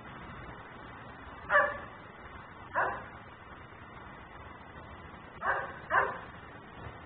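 German Shepherd barking four times, with the last two barks about half a second apart.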